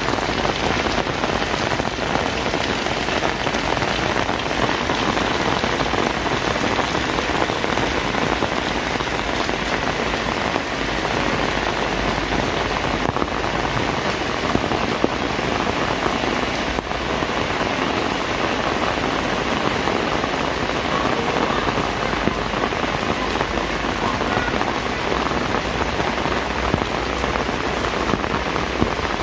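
Heavy rain falling, a steady dense patter of drops that holds at the same strength throughout.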